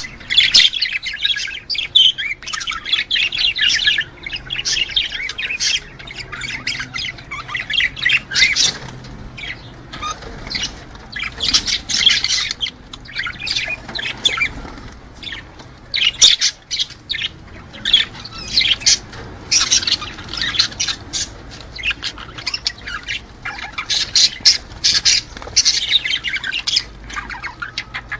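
Budgerigars chattering and warbling: a fast, continuous stream of chirps and squawks in spells with short lulls, the courtship and mating chatter of breeding budgies.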